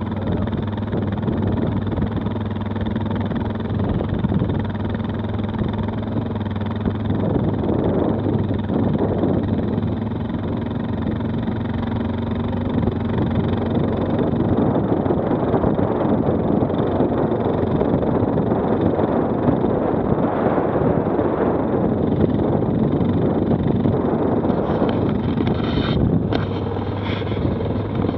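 Stels 800D quad bike engine running steadily under way, under a thick rush of wind and terrain noise. A few short knocks come near the end.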